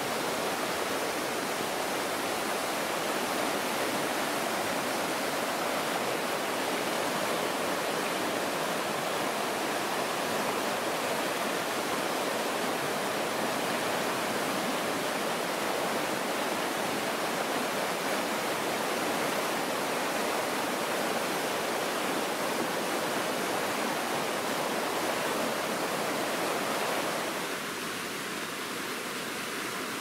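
Oirase Stream's rapids rushing over rocks: a steady, even rush of white water, a little quieter for the last few seconds.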